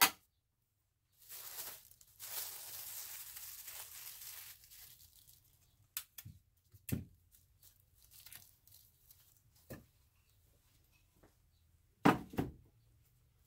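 Plastic liner crinkling as it is fitted into a wooden loaf soap mold, with tape pulled from a dispenser and torn off, then scattered small knocks and two louder knocks near the end.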